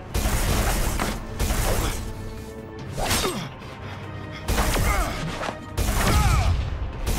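Cartoon fight sound effects: several sudden crashes and hits of magic energy blasts slamming a body against walls, some followed by falling magical zaps, over a backing music score.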